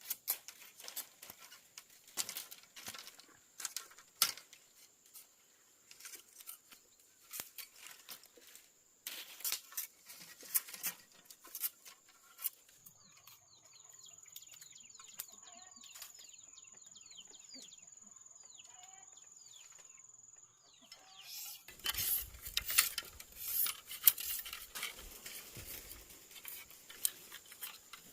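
Scattered light clicks and taps, louder and denser near the end, with a faint steady high-pitched tone holding for several seconds in the middle.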